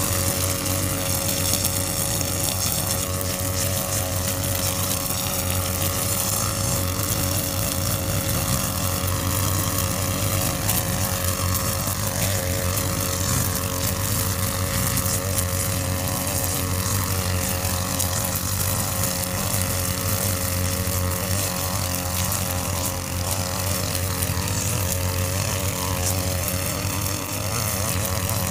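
Two petrol brushcutters (line trimmers) running steadily at working speed while cutting long grass.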